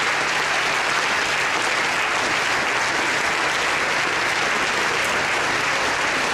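An audience applauding steadily, with dense, even clapping.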